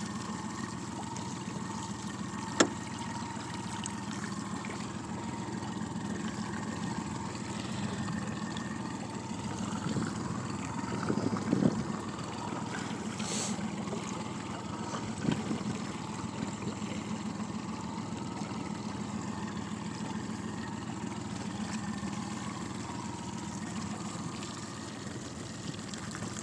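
Outboard motor running steadily as the boat moves slowly on open water, with a sharp click about two and a half seconds in and a few brief knocks around eleven and fifteen seconds in.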